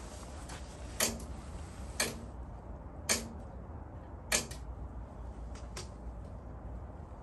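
Sharp mechanical clicks at the controls of an old Kubota riding tiller, about once a second four times and once more near the end, each with a brief low hum after it, over a steady low hum.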